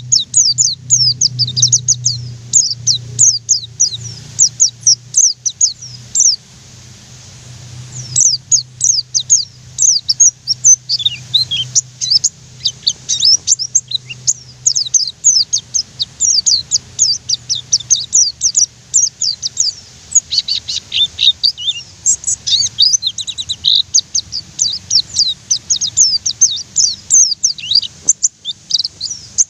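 A white-eye (pleci) singing a long, rapid rolling song of high, thin chirping notes. It breaks off briefly about six seconds in, then goes on in a fast, dense run.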